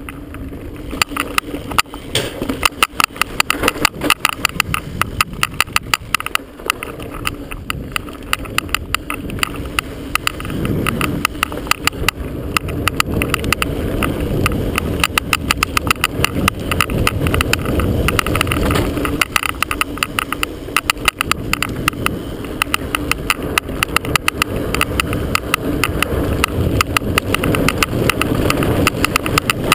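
Chest-mounted action camera rattling and knocking in its mount, a rapid, uneven run of clicks, over the steady rumble of wind and mountain-bike tyres on a dirt trail descent.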